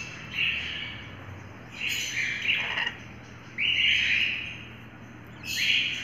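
Lorikeets giving short, harsh screeching calls, four in all, spaced a second or so apart.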